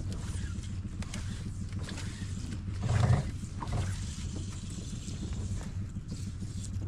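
Boat's outboard motor idling with a steady low hum, under a rushing hiss of wind, with one short louder sound about three seconds in.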